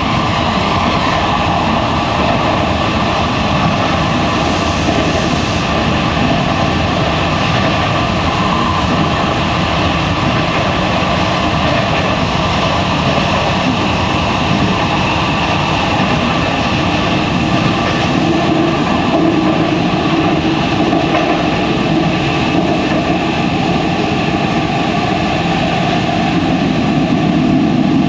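Osaka Metro 70 series linear-motor subway car running at speed through a tunnel, heard from inside a motor car: steady running noise of wheels on rail with several steady tones layered in.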